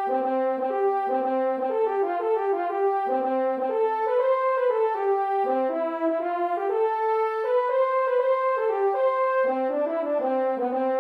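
Instrumental brass music: several parts playing a slow tune together in held chords, the notes changing in step.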